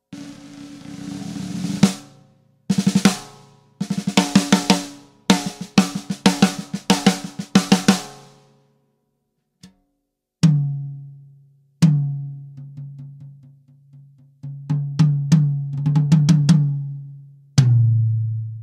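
Sonor Force 3001 drum kit played: a roll swelling over the first two seconds, then fast fills across snare and toms, then after a short pause single deep tom strokes that ring out, the last ones lower. The toms are tuned by ear to a medium tuning on their old heads.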